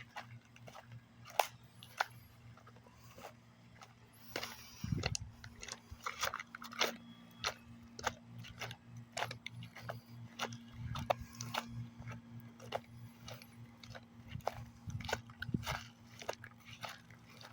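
Footsteps crunching on dry ground, a string of short crackling steps about one or two a second, over a faint low steady hum.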